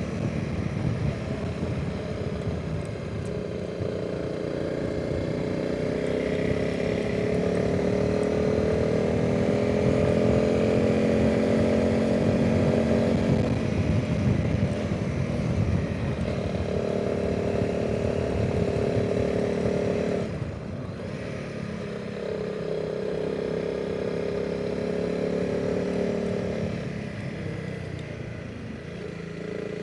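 Honda CRF300 Rally's single-cylinder engine running under way with wind noise over it. The engine note climbs slowly, then drops sharply about twenty seconds in and carries on lower.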